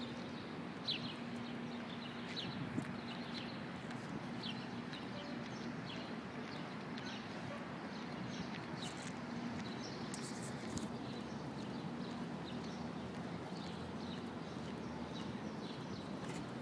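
Small birds chirping in short, falling notes over a steady low hum of city street background.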